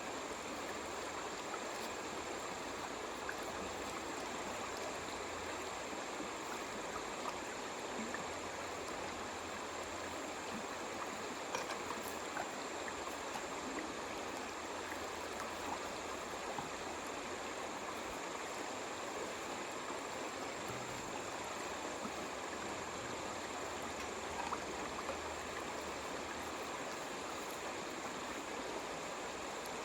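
Steady rushing, splashing flow of water, with small scattered splashes and clicks.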